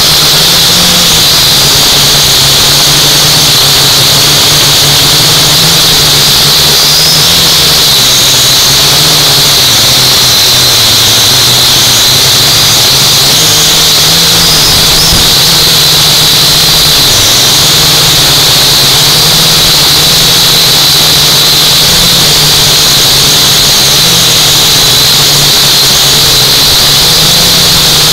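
Motors and propellers of a UDI U818A-1 toy quadcopter, heard loud and close through its own onboard camera: a steady high whine over a low hum whose pitch wavers slightly as the throttle shifts.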